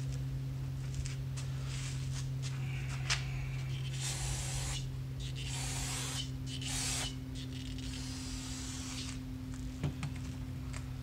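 Aerosol brake cleaner sprayed onto a steel truck front-end bracket in three short hissing bursts, about four to seven seconds in, with light handling clicks and a steady low hum underneath.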